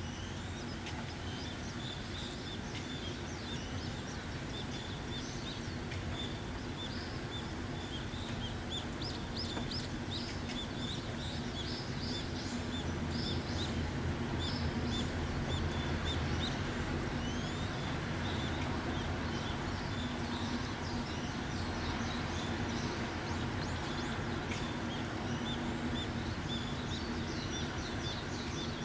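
Steady rain falling, with small birds chirping over it: a quick repeated high note runs through, and a flurry of short chirps comes near the middle.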